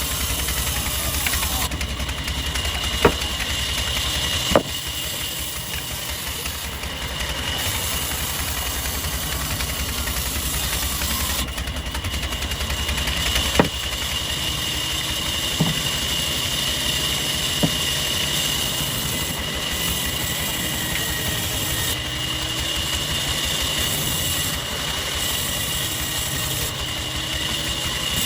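Machinery running steadily with a constant high whine and a low hum, with a few sharp knocks: twice in the first five seconds and three more around the middle.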